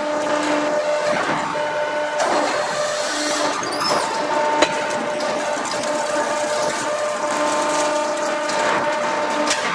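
A 1600-ton hot forging hydraulic press running: a steady machine hum with several held tones over a noisy rush. A single sharp knock comes about four and a half seconds in.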